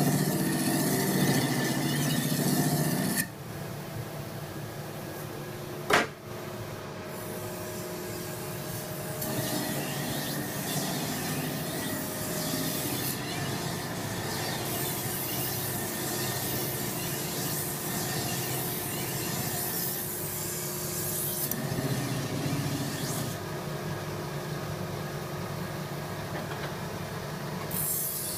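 Kitchen knife blades being ground on motor-driven wheels. For the first few seconds the blade is hollow-ground on a grinding wheel with a steady high whine. After that, blades are drawn across an edging and honing wheel with a continuous rasping rub that shifts from pass to pass, and there is a single sharp click about six seconds in.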